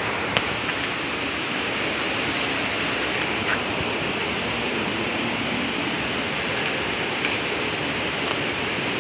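Steady rush of river water flowing beneath a bridge, with a thin steady high tone above it and two faint clicks, one just after the start and one near the end.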